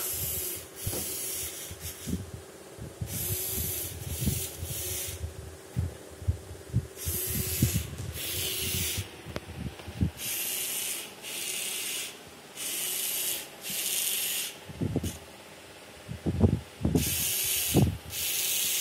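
Servo motors in a 3D-printed robotic hand buzzing in short bursts, often two in quick succession, as the fingers are driven closed and open again. A few low knocks fall between the bursts, the strongest near the end.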